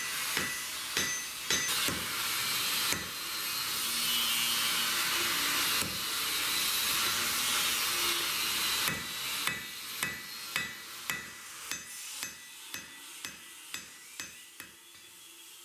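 Hand hammer striking red-hot 1095 steel on a steel anvil, forging a knife blank. The blows come in steady runs at about two a second. In the middle there are several seconds of steady rushing noise without blows.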